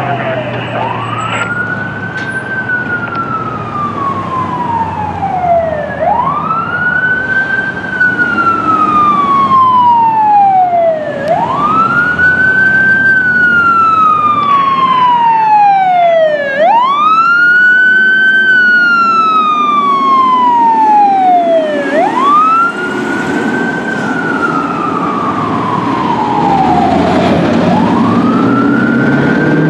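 Fire engine siren on a slow wail: each cycle climbs quickly to a high pitch and sinks slowly, about every five seconds, over the rumble of the truck.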